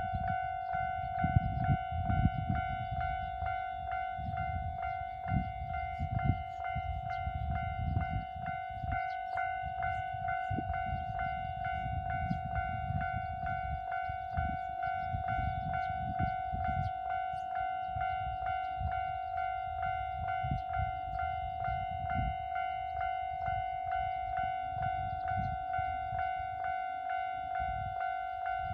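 Level crossing warning bell ringing in an even, rapid rhythm, a single steady tone struck over and over, with an uneven low rumble beneath it.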